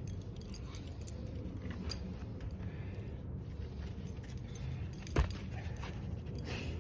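Light metallic jingling and clinking, with one sharp knock about five seconds in, over a steady low rumble.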